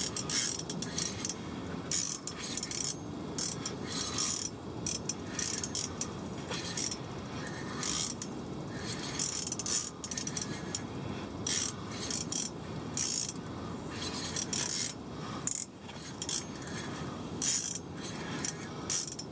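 Irregular clicking and rattling from fishing gear being handled, a few bursts a second, over a steady low hiss.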